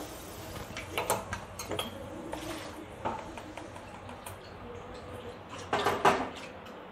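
Faint scattered clicks and light taps of kitchen handling over low background noise, with a louder cluster about six seconds in.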